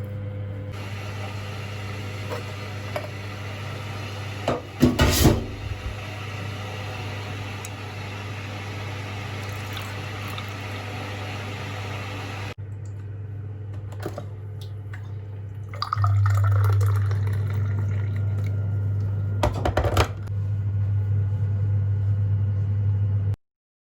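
Kitchen sounds over a steady low hum: water running and dishes clinking, with short clatters about five seconds in and again near twenty seconds. The hum gets louder about two-thirds of the way through, and everything cuts off abruptly just before the end.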